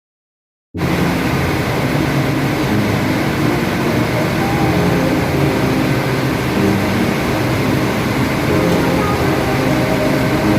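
Loud, steady machinery noise with a deep hum, cutting in suddenly about a second in after dead silence.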